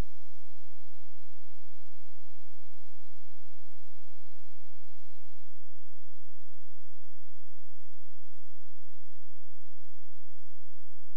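Steady low mains hum with a faint hiss, from the audio track of a VHS tape playback.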